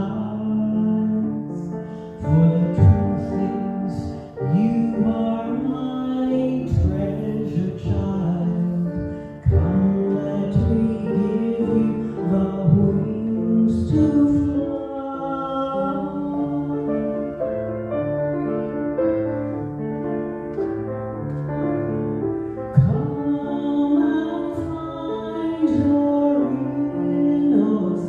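A woman singing into a handheld microphone, accompanied on a Kawai piano.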